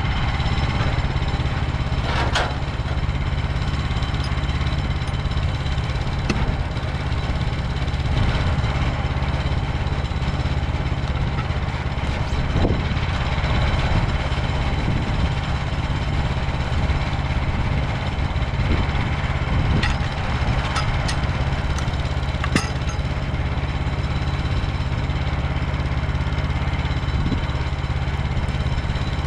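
Portable band sawmill's gas engine running steadily, with a few short clicks scattered through.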